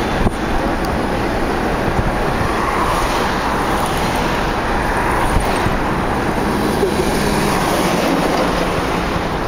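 A car driving along a street, with steady road and engine noise.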